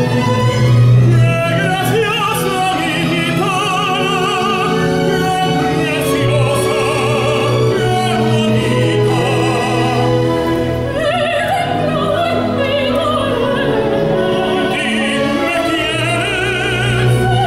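Tenor and soprano singing a Spanish zarzuela duet in operatic style with wide vibrato, accompanied by a full symphony orchestra with sustained strings.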